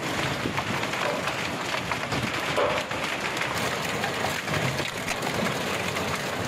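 Steady hiss of heavy rain and hail falling.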